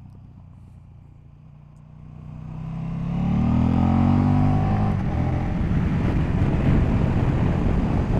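KTM Super Duke GT's V-twin engine, quiet and low at first, then accelerating with its note rising for a couple of seconds, then running hard with a loud, rough rumble at speed.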